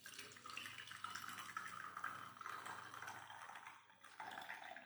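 Faint pouring of a herbal decoction (kadha) through a strainer, the liquid trickling and splashing into a container, with a brief lull about four seconds in.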